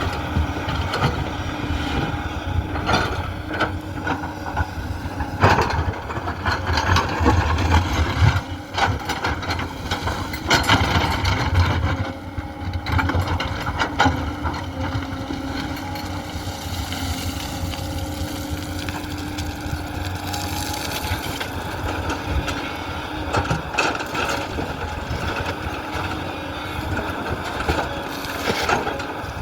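Heavy diesel engine of a Tata Hitachi excavator running steadily, with repeated knocks and clatter through the first half as material is loaded into a dump truck.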